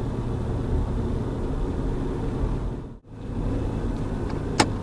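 Steady low road and engine rumble heard inside a moving car's cabin. It cuts out abruptly for a moment about three seconds in, then resumes, with a single sharp click near the end.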